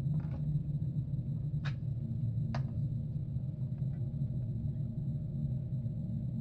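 A steady low hum, with three faint sharp ticks in the first few seconds.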